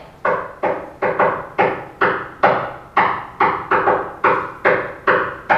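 Knuckles rapping on a wooden table, tapping out a simple repeating rhythm: about fourteen sharp knocks at two to three a second, each dying away quickly.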